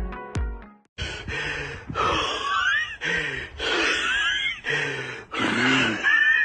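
A person making breathy, gasping vocal sounds in about five bursts of roughly a second each, after a snatch of electronic dance music that ends just under a second in.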